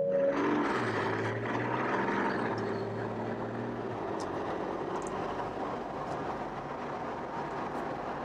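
Ineos Grenadier's turbocharged straight-six running as it drives, heard from inside the cabin with the roof hatch open, over steady road and wind noise. The engine note is strongest at first and eases off about four seconds in.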